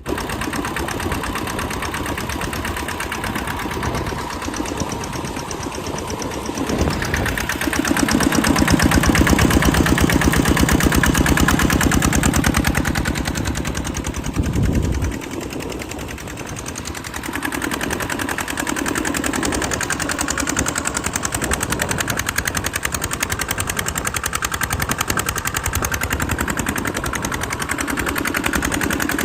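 Thale Thong TT110 diesel engine running after repair, driving an 8-inch Phaya Nak axial-flow water pump pipe: a steady, rapid firing beat, louder from about 7 to 15 seconds in.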